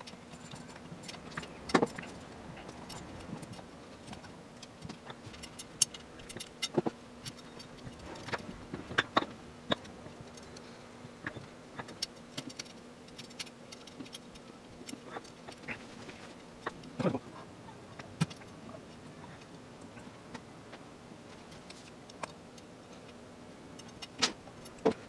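Steel bicycle spokes clicking and clinking against each other and the rim as a wheel is laced by hand: scattered sharp clicks, with a few louder ones about 2, 6, 9, 17 and 24 seconds in, over a faint steady hum.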